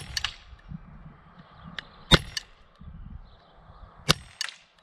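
Walther PPQ M2 4.5 mm CO2 pellet pistol firing three shots about two seconds apart, each a sharp pop. Each shot is followed a split second later by a fainter metallic clank from the pellet striking a steel knock-down target.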